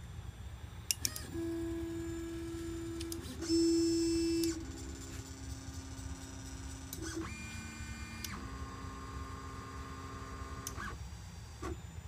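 Stepper motors of a DIY pick-and-place machine whining at steady pitches as the placement head is jogged, the note jumping to a new pitch with each new move. A short click comes as moves start and stop, and the whine is loudest for about a second a little over three seconds in.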